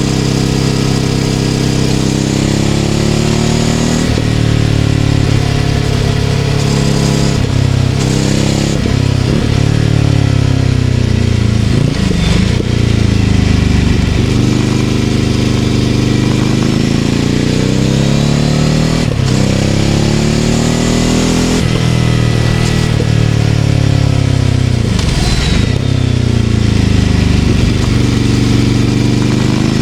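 Ducati Scrambler 800's air-cooled L-twin engine through a Leovince LV-10 exhaust, heard on the move. The engine note repeatedly rises as the bike pulls and then drops sharply, several times over, with a steady rush of wind and road noise underneath.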